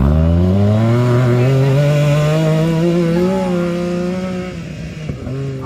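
Small four-wheeler (ATV) engine accelerating hard toward a jump, its pitch climbing steadily for two to three seconds, holding, then dropping back a little near the end.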